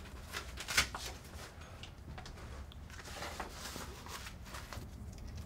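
Faint rustling and a few soft clicks as a polygraph blood-pressure cuff and its hose are handled and fitted on a man's upper arm over his shirt sleeve, over a low steady room hum.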